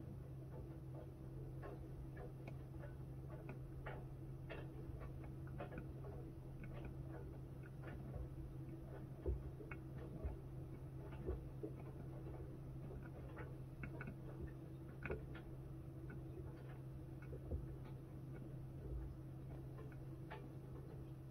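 Miele W1 front-loading washing machine running: a steady low hum with scattered, irregular light clicks and ticks.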